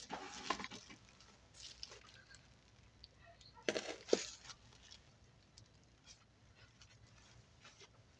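Plastic sheeting crinkling under hands in two short bursts, at the start and near the middle, with faint light taps between as stick pins are pushed through a crocheted doily into the board.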